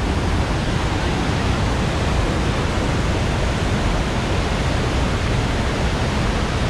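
Iguazu Falls' waterfalls and the rapids below them rushing, a steady, dense roar of falling water with no pauses, heaviest in the low end.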